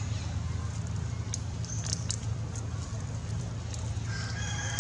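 Scattered light ticks and rustles over a steady low hum; about four seconds in, a drawn-out high animal call with several overtones begins and holds for over a second, like a rooster crowing.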